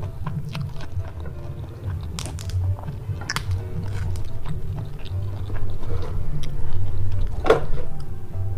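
Close-miked chewing of spicy stir-fried squid and rice, with wet mouth smacks and clicks scattered throughout.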